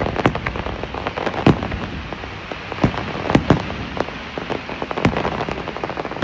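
Fireworks going off: a dense crackling with many sharp bangs scattered through it, the loudest about a second and a half in, twice around three and a half seconds in, and once about five seconds in.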